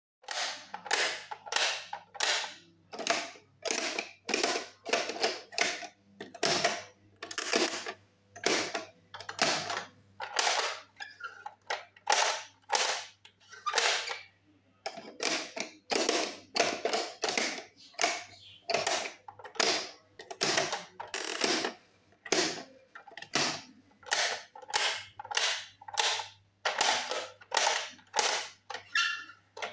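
Children's plastic pop-up toys worked by hand: a steady run of sharp plastic clacks, about one to two a second, as buttons are pressed and spring-loaded figures snap up. There is a short break a little before halfway.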